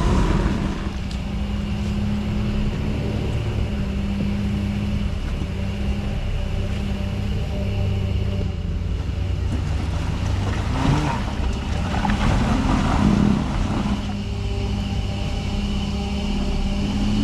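Jeep engine running steadily on an off-road trail, with a couple of louder surges in revs about eleven and thirteen seconds in.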